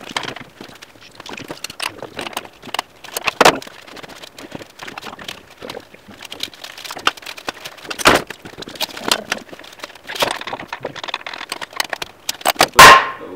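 A PVC pipe drift sleeve is being worked onto a trike wheel by hand and with a tool. It makes irregular scraping, rubbing and clicking, with sharp knocks about three and a half seconds in, about eight seconds in, and a loud pair near the end.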